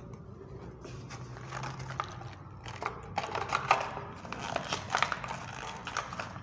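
Plastic blister pack of a Hot Wheels car being worked open from its cardboard backing card. The plastic gives irregular crinkles, crackles and sharp clicks that come thicker after the first second or two.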